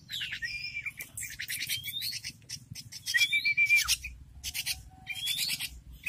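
Young oriental magpie-robin (kacer) chick calling: raspy chirps mixed with short rising whistles, repeating every second or two.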